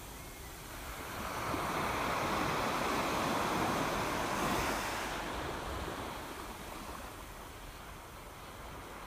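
Seawater surging through a rockpool, heard from under the water: a wash of water noise that swells about a second in and ebbs away over the last few seconds.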